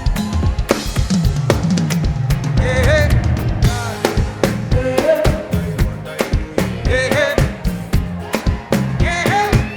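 Live Afrobeats band music: a drum kit playing a steady groove of kick, snare and rimshots over a bass line, with a melody above whose notes bend in pitch.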